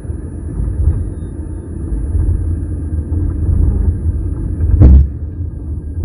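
Low road rumble from a Nissan Leaf 30 kWh driving over small road-marking bumps, picked up from under the rear seat. About five seconds in comes a single sharp bang like a small explosion with pressure, from the battery area. The owner links it to the car's battery and does not know its cause.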